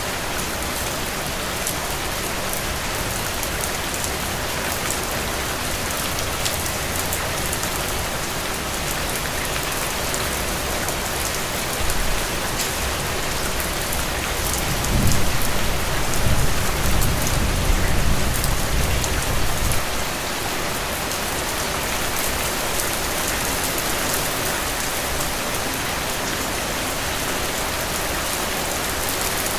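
Heavy, steady rain falling on soil and puddles, a dense even hiss with fine individual drop-ticks through it. About halfway through, a low rumble swells for several seconds, then fades back into the rain.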